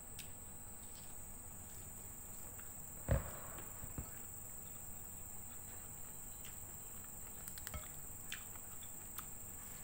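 Quiet eating sounds as a person chews rice and fried fish eaten by hand: scattered soft mouth clicks and one louder knock about three seconds in. A steady high-pitched whine runs underneath.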